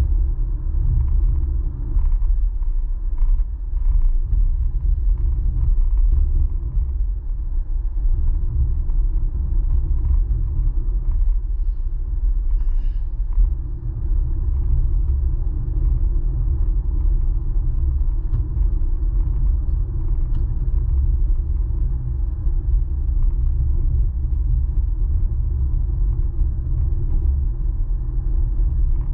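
Steady low rumble of a car's road and engine noise heard inside the cabin while driving.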